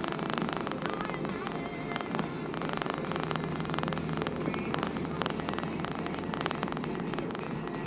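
Open-top car driving along at steady speed with the roof down: a constant rush of road and wind noise, with many faint crackles over it.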